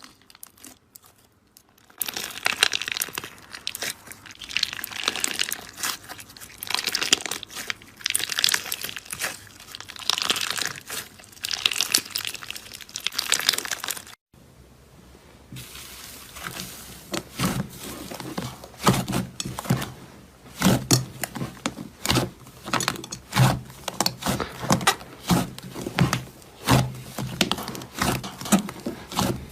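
Slime being squeezed and pressed by hand: a dense run of crisp crackling and popping, then, after a short break about halfway, wetter squishing pulses with a deeper, fuller sound.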